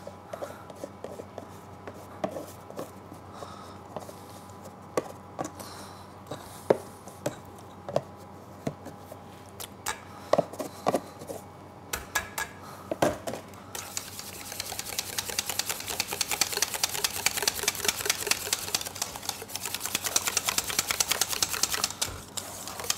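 Wire whisk beating raspberry purée and gelatin in a stainless steel bowl. Scattered taps and scrapes against the bowl and tub for the first half, then from about halfway on fast, steady whisk strokes clicking against the bowl.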